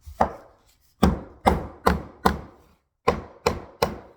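Hammer blows driving a hardwood floorboard sideways so its groove seats onto the tongue of the previous row: eight sharp knocks on the wood, a single one, then a run of four about 0.4 s apart, then three more.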